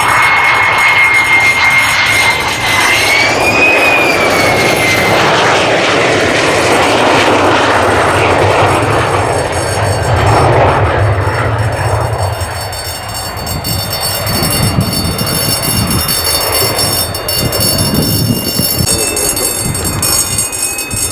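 Lockheed Martin F-35A Lightning II jet engine, very loud, as the fighter powers through a go-around. A high whine rises briefly and fades within the first five seconds. The heavy rumble eases a little in the second half.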